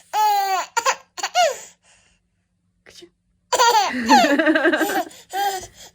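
Baby laughing: a falling squeal and a couple of short laughs in the first two seconds, then, after a pause, a longer run of breathy pulsing laughter in the second half, and one more short laugh near the end.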